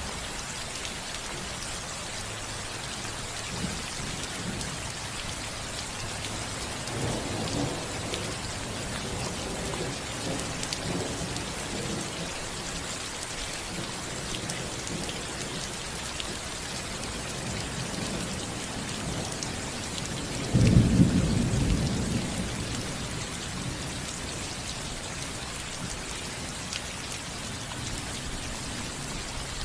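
Steady rain falling on a roof, with a soft low rumble of thunder about seven seconds in. About two-thirds of the way through, a sudden louder thunderclap, the loudest sound here, rolls away over a couple of seconds.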